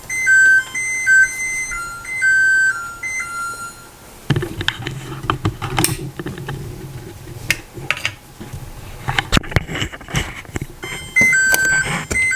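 LG stove's timer-end melody: a simple electronic tune of clean beeping notes that stops about three seconds in. Several seconds of clicks and knocks over a low hum follow, then the tune starts again near the end.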